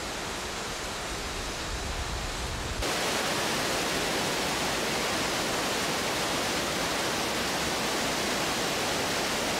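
Water rushing into a flooding dry dock through openings in its walls and floor: a steady rushing noise that gets louder and brighter about three seconds in.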